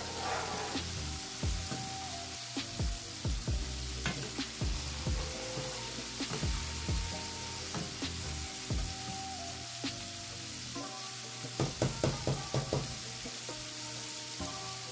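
Breaded pork rib nuggets deep-frying in hot oil: a steady sizzle with frequent pops and crackles, and a quick run of pops near the end. Soft background music runs beneath it.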